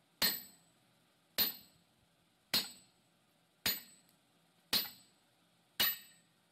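Striker's sledgehammer hitting a handled top tool held on a red-hot steel bar on the anvil while forging a hammer eye drift. Six evenly spaced blows, about one a second, each with a short, high metallic ring.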